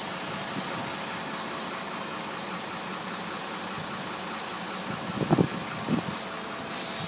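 Truck-mounted crane's engine idling steadily. About five seconds in, two short loud bursts of voice cut through, and a hiss starts just before the end.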